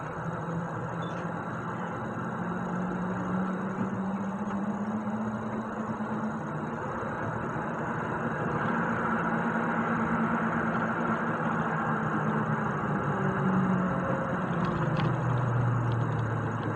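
Heavy truck's diesel engine running steadily under way, with road noise; the engine note drops noticeably near the end.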